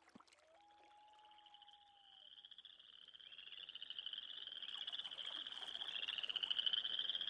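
Chorus of frogs calling, a dense, fast-pulsing trill that fades in and grows steadily louder, with a single drawn-out whistle near the start.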